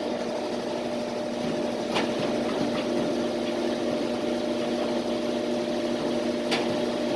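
Washing machine in its spin cycle: a steady motor hum, with a light tick about two seconds in and another near the end.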